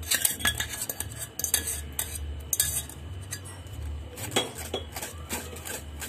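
A spoon scraping and clinking against a stainless-steel mesh strainer in quick, irregular strokes, working agar-agar syrup through the sieve to strain out undissolved lumps.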